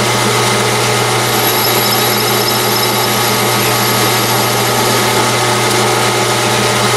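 Metal lathe running steadily while single-point threading a titanium suppressor tube, with the threading tool inside the bore.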